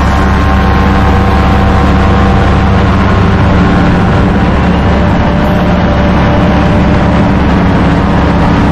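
Tandem paramotor trike's engine and propeller running at full power through the takeoff run, a loud, steady drone.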